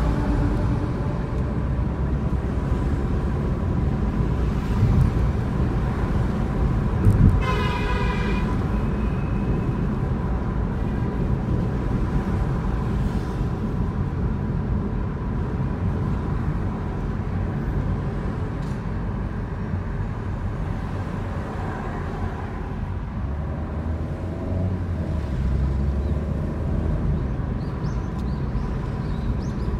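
Steady engine and road rumble of a car driving through city traffic, with a short car horn honk about seven seconds in.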